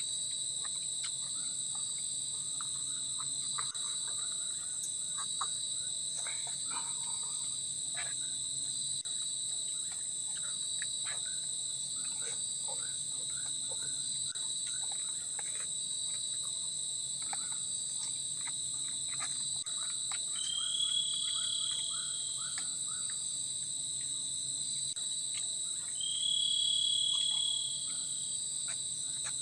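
Steady chorus of forest insects, crickets, a high unbroken drone. Twice, about two-thirds of the way through and again near the end, a louder single-pitched call joins for about two seconds.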